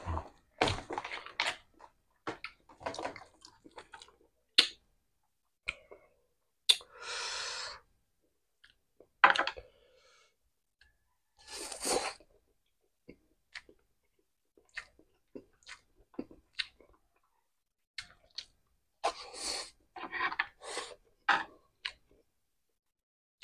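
Close-up chewing and crunching of crispy food, including crispy scrambled egg, pancit noodles and chicharon. The sound comes in irregular clusters of crackly bites with short pauses between them, and one steadier noisy sound of about a second comes about seven seconds in.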